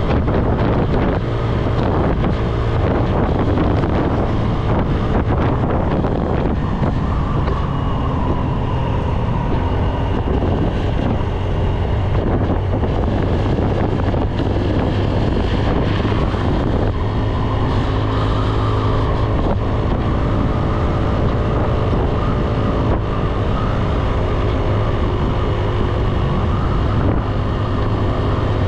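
Motorbike engine running under way, with a steady low hum whose pitch wavers slightly. Wind noise buffets the microphone throughout.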